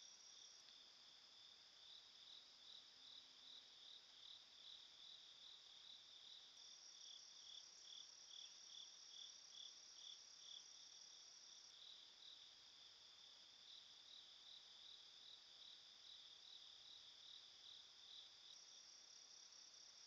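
Faint chorus of insects: a steady high trill with a rhythmic chirp repeating about two to three times a second.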